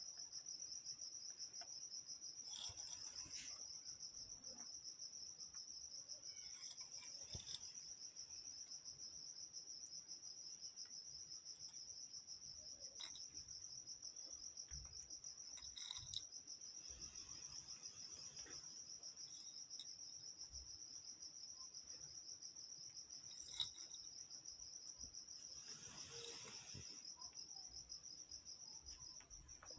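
A cricket trilling without a break: a faint, steady, high-pitched pulsing chirp. A few soft rustles and taps sound over it as pieces of nut are set down on a plate.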